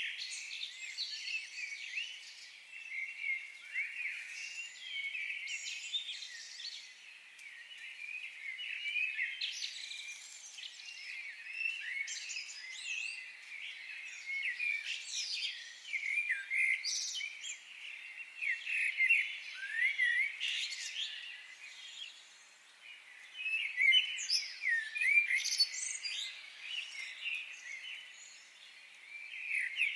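Several songbirds chirping and singing together in a forest, a dense chorus of short, quick high notes and trills.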